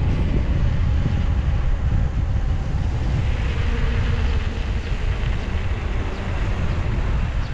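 Wind buffeting the microphone of a camera on a moving bicycle: a steady, heavy low rumble over the rough noise of the ride.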